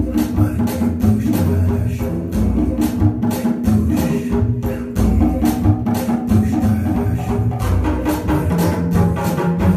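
Music with a steady percussive beat and deep bass.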